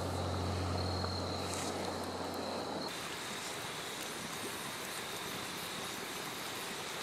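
Night insects trilling steadily, a thin high continuous chirring, over a low sustained music note that ends about three seconds in.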